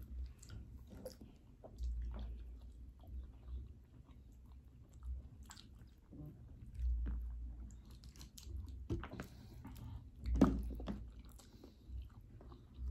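Close-up chewing and mouth sounds of people eating by hand: soft wet smacks and small clicks, with occasional soft low bumps and one louder smack about ten seconds in.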